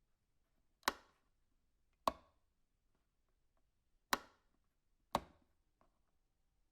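A wall light switch flicked four times, each a single sharp click at uneven gaps of one to two seconds.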